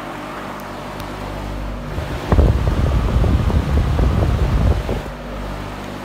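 A GE F12W14 box fan runs on high in reverse with a steady motor hum. From about two seconds in until about five seconds in, loud wind buffeting on the microphone drowns the hum out.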